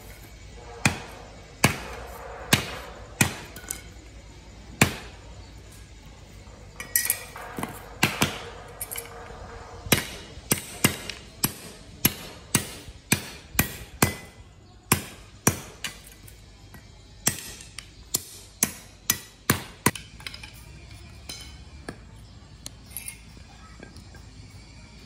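Repeated sharp chopping strikes, a blade or tool hitting hard against a surface, some with a brief ring. A few spaced blows come first, then a quicker run of about two a second through the middle, then lighter, fainter ones near the end.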